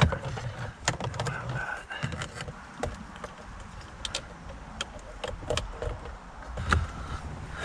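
Scattered small clicks and light knocks of hands working steering-column parts and wiring connectors in a car's interior.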